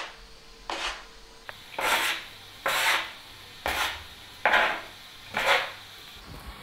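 Yeast dough and flour scraped and rubbed across a wooden pastry board, in short rasping strokes about once a second.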